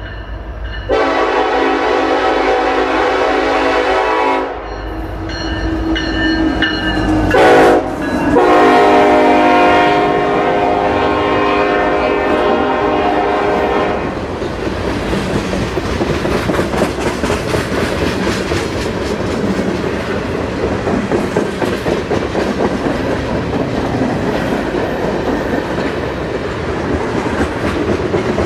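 Locomotive horn blowing a series of blasts, two long ones with a short loud blast between them, like a grade-crossing warning, then the train rolling past with its wheels clicking steadily over the rail joints.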